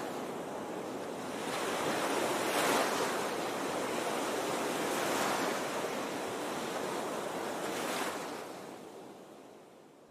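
Rushing noise that swells and eases about every two and a half seconds, fading out near the end.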